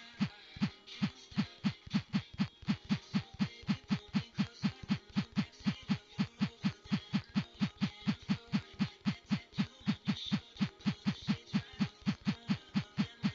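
A rapid, regular thumping, about four low thuds a second, each with a sharp click, keeping an even beat with brief breaks.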